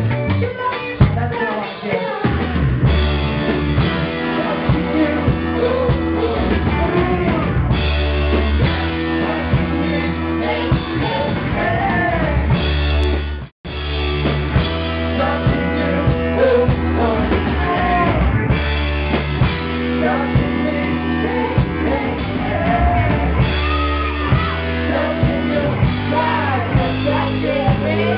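Live band playing loud music with a drum kit and two singers on microphones. The sound cuts out for a split second about halfway through.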